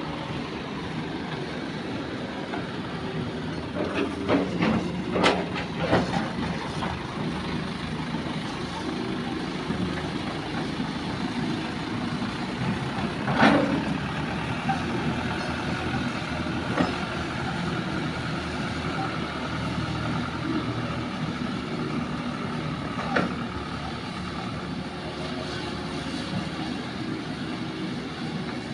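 Diesel engines of dump trucks and a Hitachi hydraulic excavator running steadily on an earthworks site, with a few sharp knocks, a cluster of them about five seconds in and single ones around the middle and later on.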